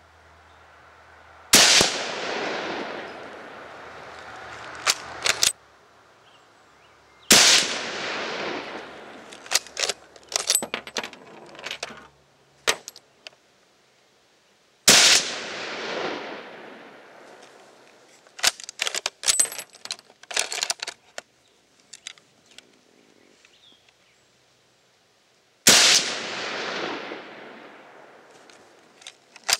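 Four shots from a Chinese Mauser bolt-action rifle firing 8mm Mauser, each with a long echo fading over a few seconds. Between shots come clusters of short metallic clicks as the bolt is worked.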